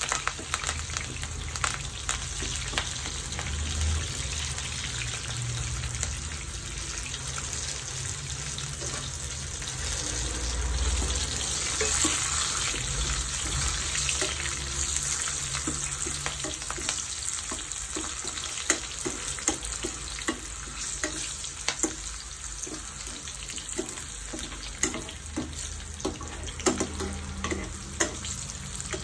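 Sliced chillies and curry leaves frying in hot oil, a steady sizzle full of crackles. In the second half come a string of sharper clicks of a utensil stirring in the pot.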